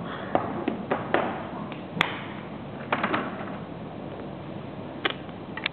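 About half a dozen sharp taps and knocks of hard objects, scattered irregularly, the loudest about two seconds in, over a steady low background noise.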